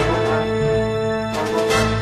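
Theme music with held chords; a bright accent comes in a little past the middle.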